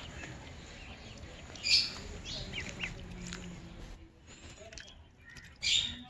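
Ducklings peeping: a few short, high chirps scattered through, the loudest about two seconds in and again near the end.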